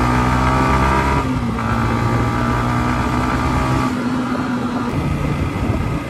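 Motorcycle engine running steadily at idle. Its note drops slightly about a second in and fades into a rougher rumble about four seconds in.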